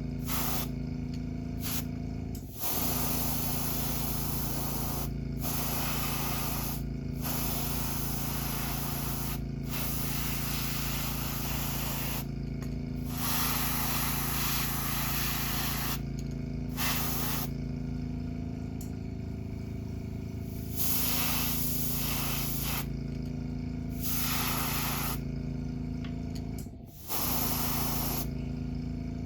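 Airbrush spraying paint onto a crankbait, hissing in repeated bursts broken by short pauses as the trigger is worked, over a steady low hum.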